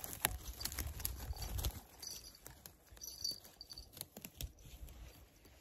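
Light rustling and scattered small clicks and snaps of twigs and dry leaf litter on a mossy forest floor as something moves through it, over a low rumble that fades out about a second and a half in.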